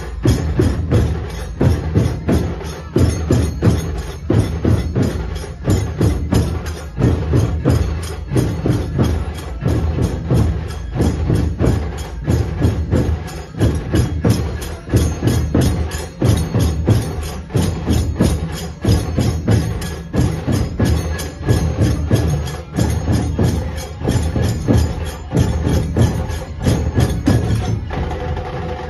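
Dhol-tasha pathak playing: massed dhol drums beating a heavy, driving rhythm under rapid tasha drum strokes and the steady clash of zanj cymbals.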